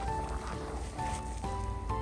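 Background music: a melody of short held notes stepping from pitch to pitch over a steady low bass.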